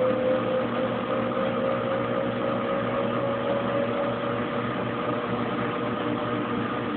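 Kenmore Oasis top-load washing machine starting a slow spin, its motor humming steadily with the drain pump running.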